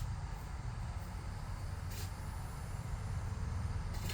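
A steady low mechanical rumble, as from a running motor or engine, with faint brief ticks about every two seconds.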